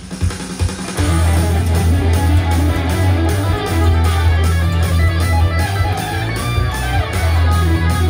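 Electric guitar playing a fast bluesy shred lick, running E7 and A7 arpeggios across octaves, over a backing track whose bass and drums come in about a second in.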